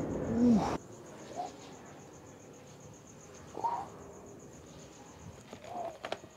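A man lets out a strained, falling grunt while lifting a kettle grill lid; then the sound cuts to crickets chirping steadily, with a few short grunts of effort and some light knocks near the end.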